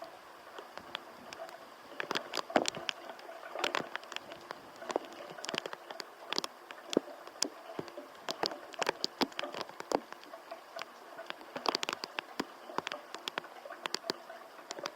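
Raindrops pattering in irregular sharp taps, several a second, over a faint steady hiss.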